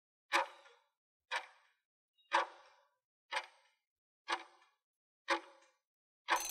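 Countdown-timer clock ticks, one sharp tick each second, six in all. Near the end a ringing chime starts as the countdown runs out.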